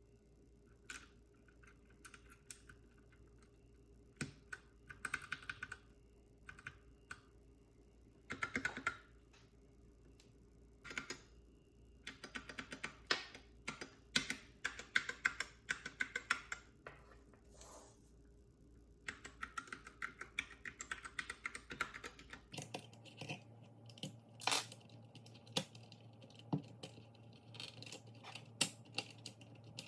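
Typing on a Keychron K6 mechanical keyboard: irregular runs of sharp key clicks with short pauses between them. Later the keystrokes come more singly and sparsely.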